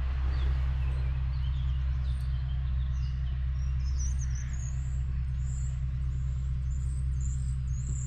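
Engine of a Multicar M24 small utility truck idling, a steady low drone. Small birds chirp high above it from about three seconds in.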